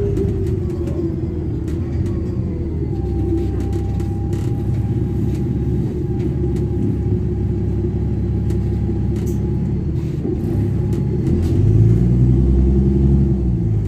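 A double-decker bus's diesel engine and loud exhaust, heard from inside the passenger saloon, running with a steady low drone and light rattles and clicks. Near the end the engine note rises and grows louder, then falls back.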